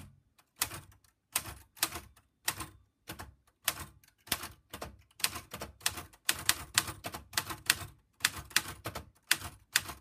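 Remington Personal-Riter manual typewriter being typed on, one key at a time: the typebars strike the paper on the platen in sharp clacks, about two or three a second at an uneven pace.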